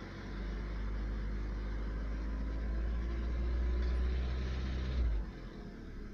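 Car engine held at raised revs with a knock, the engine knock that shows up at 1900 rpm and above; the revs drop back about five seconds in.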